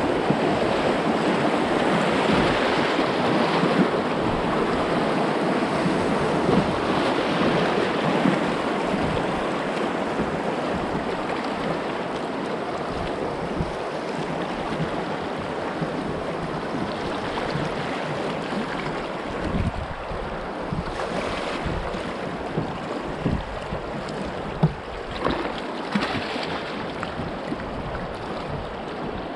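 River rapids rushing around a kayak, loudest in the first ten seconds and easing as the boat reaches calmer water. From about halfway, short knocks and splashes of paddle strokes sound over the water.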